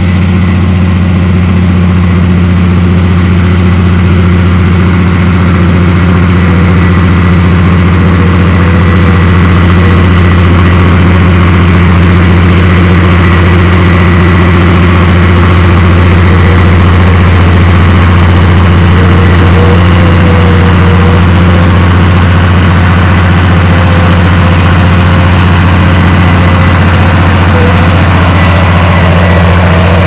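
Bulldozer diesel engine running at a steady, unchanging speed, a loud deep hum with no rise or fall in pitch.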